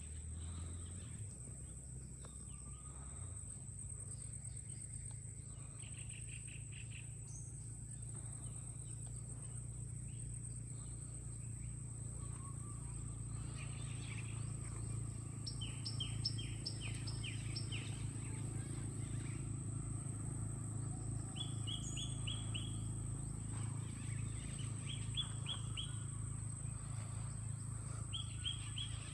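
Birds chirping, with several short runs of quick repeated notes, over a steady high-pitched insect drone and a low, steady rumble.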